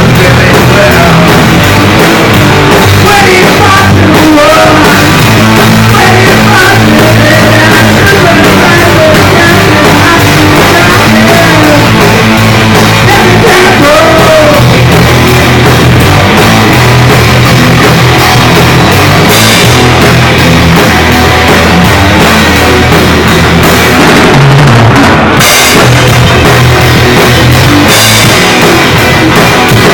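Loud rock music from a band playing, with a drum kit and a steady bass line under dense guitar sound.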